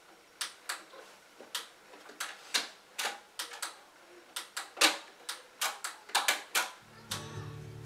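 Irregular sharp plastic clicks and clacks as a red portable stereo is handled and its buttons pressed, about twenty in all. Music starts playing near the end.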